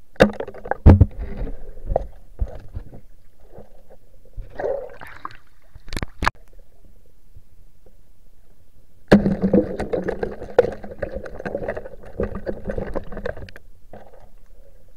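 Muffled underwater sound picked up by a camera held below the surface: sharp knocks and clicks, then a spell of crackling, bubbling noise with a low hum from about nine seconds in.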